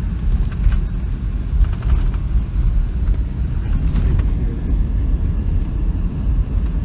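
Steady low rumble of road and engine noise heard inside a moving car's cabin, with a few faint clicks.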